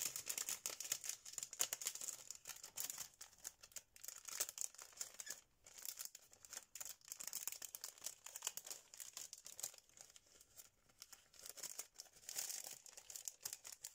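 Clear plastic packaging crinkling and rustling as a sheet of clear stamps is slid back into its sleeve. Faint and irregular, easing off for a moment past the middle.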